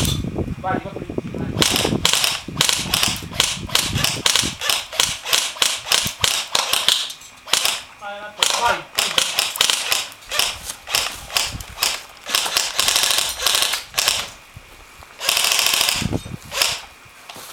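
Replica guns firing rapid strings of sharp, cap-gun-like shots in a skirmish game, with a longer continuous burst near the end.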